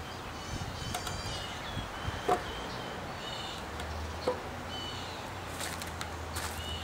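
Two short wooden knocks as a 2-by-12 yellow pine board is shifted on a concrete step, about two seconds in and again about four seconds in, over birds chirping and a low steady hum.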